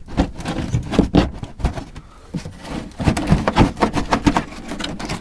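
Plastic wheel-arch liner being pulled and worked loose from a car's wheel well: irregular knocks, clicks and scraping of plastic.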